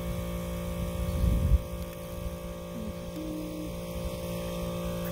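Steady hum of a running compressor. About a second in, a loud low rumble of wind on the microphone lasts about half a second.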